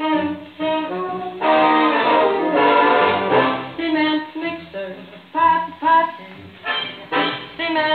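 A 78 rpm record of a dance-band song playing through an old wooden radiogram's loudspeaker.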